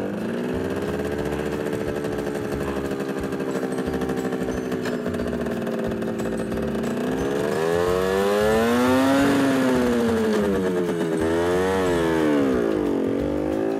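Simson Spatz moped's small two-stroke single-cylinder engine running. It holds a steady speed for the first half, then revs up and down a few times as it pulls away.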